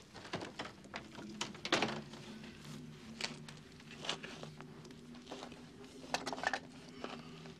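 Objects being handled and searched through: scattered rustling and light clattering, with louder clusters of clatter about two seconds in and near the end, over a low steady hum.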